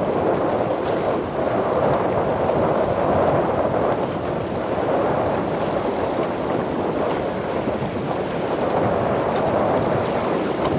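Wind buffeting the microphone: a steady rushing noise that swells and eases every few seconds.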